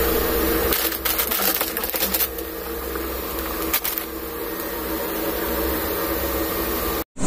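Plastic instant-noodle packets crinkling and crackling in short clusters, mostly in the first two seconds and once more near the four-second mark, over a steady low hum.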